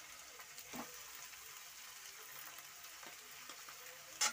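Faint, steady sizzle of penne and onions frying in oil in a kadhai, with a sharp tap near the end.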